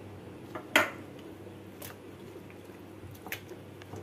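Hand squishing and kneading fish fillets in a wet green herb-and-egg paste in a bowl, with three sharp clicks, the loudest about a second in.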